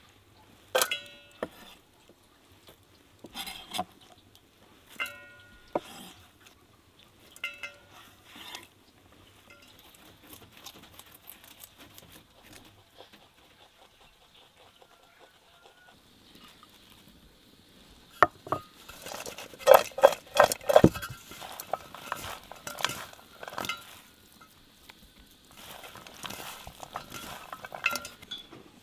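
Kitchen utensils and cookware clinking: a few separate strikes that ring briefly in the first several seconds, then a busier run of knocks and clatter in the second half.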